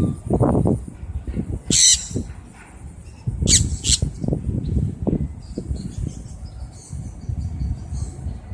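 Sun conures screeching: one harsh, shrill call about two seconds in, then two more in quick succession about a second and a half later, over a low rumbling noise.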